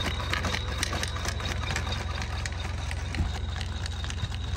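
Ghost Robotics quadruped robot walking: a steady low motor hum with quick, irregular clicks from its joints and feet as it steps.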